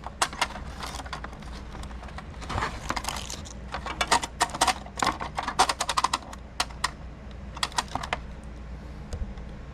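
Quick, irregular clicks and rattles of a plastic VHS cassette being handled and worked open, in bursts for about eight seconds before they stop.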